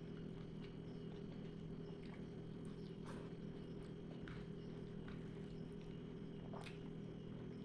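Close-miked chewing: scattered wet mouth clicks and smacks, a few sharper ones about three seconds in and near the end, over a steady low hum.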